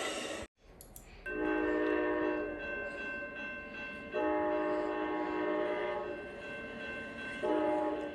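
Locomotive air horn sounding a chord of several tones in two long blasts followed by a short one, the opening of a grade-crossing signal. A stretch of noise cuts off about half a second in, before the horn starts.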